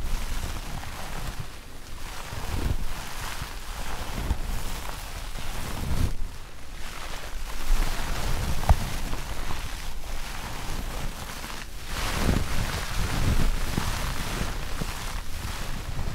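Bath sponges, one a natural sea sponge, squeezed and rubbed close to the microphone, a rustling, scrunching noise that swells and fades unevenly.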